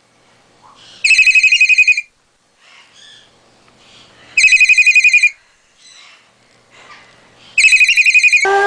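Telephone-style ring: a rapid, high-pitched trill about a second long, repeated three times at even spacing about three seconds apart.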